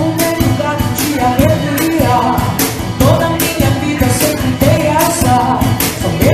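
A band playing a song, with a lead vocal coming in about half a second in over a steady percussion beat and accompaniment.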